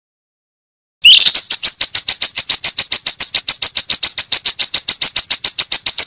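Dead silence for about a second, then a songbird's fast, harsh rattling song: a short rising note followed by an even run of sharp, high notes at about a dozen a second, stopping near the end.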